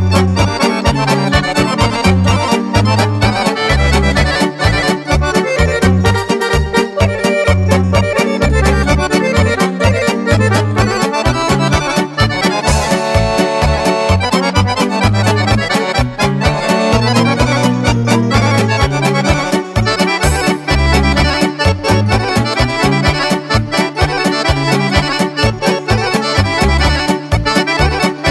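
Fast Serbian kolo dance tune played on a chromatic button accordion, over an arranged studio backing with a pulsing bass line and a quick steady beat. About 13 seconds in, a chord is held briefly before the fast playing resumes.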